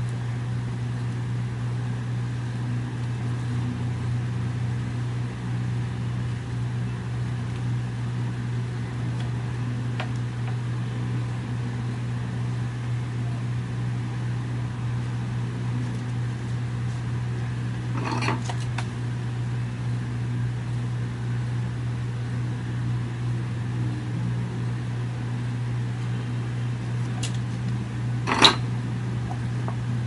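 Steady low mechanical hum. Two short clicks of small hand tools being handled at the bench stand out, about two-thirds of the way in and, louder, near the end.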